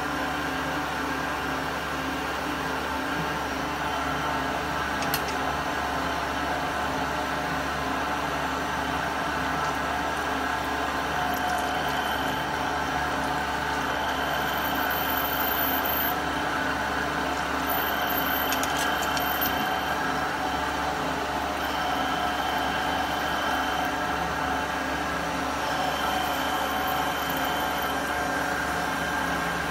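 CNC machining center running its program in continuous machining: a steady machine hum, with a higher whine that comes and goes over the second half.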